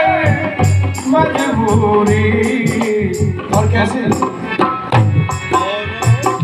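A male voice sings a ghazal into a microphone, backed by held instrumental notes, a hand drum struck about once a second and a jingling rattle.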